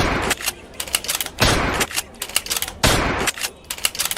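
Glass soda bottles clinking and clicking, with a hissing rush of released fizz about every second and a half.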